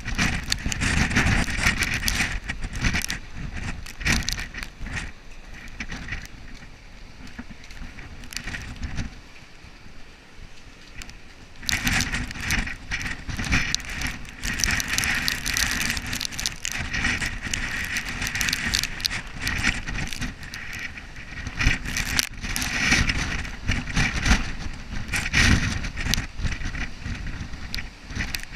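Hurricane wind gusting with driving rain, rising and falling. It eases to a lull about a third of the way through, then gusts hard again.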